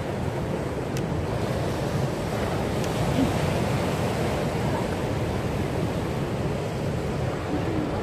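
Steady wash of ocean surf with wind buffeting the microphone.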